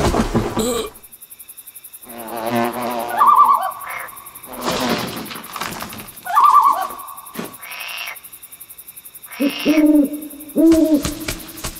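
Owl hooting as a cartoon night sound effect: separate calls a few seconds apart, two higher ones, then a pair of lower hoots near the end.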